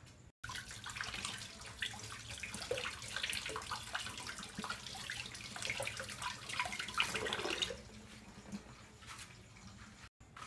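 Running water splashing, as from a tap, which stops abruptly about three quarters of the way through.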